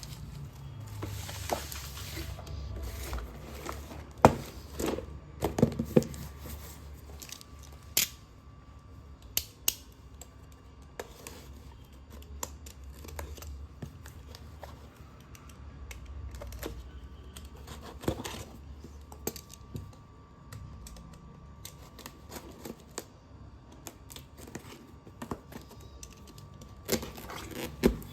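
Slate pencils being snapped and crunched: irregular sharp cracks and clicks, the loudest a few seconds in and near the end, over a steady low hum.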